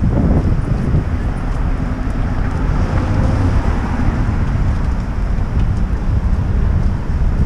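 Wind buffeting a helmet-mounted camera's microphone as a steady low rumble, over the sound of city street traffic.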